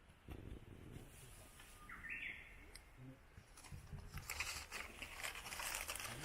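A short rising bird chirp about two seconds in, then from about four seconds on a run of crackling and rustling from dry leaves and kindling being worked while a campfire is being lit.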